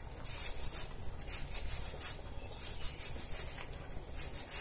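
A knife shredding half a head of red cabbage held in the hand: runs of quick, crisp slicing strokes, several a second, with short pauses between runs.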